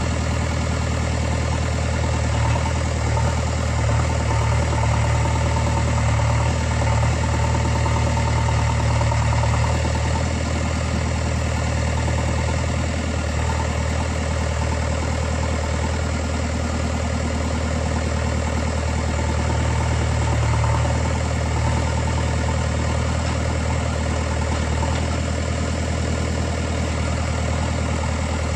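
JCB 3DX backhoe loader's diesel engine idling steadily, with a couple of slight swells in engine speed.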